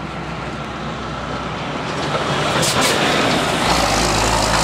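Diesel semi-truck approaching and passing close by, its engine growing steadily louder, with a deep low rumble coming in near the end as it draws level.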